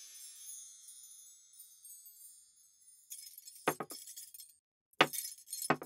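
A musical score dies away, then from about three seconds a few sharp china teacup clinks sound over a faint room hiss.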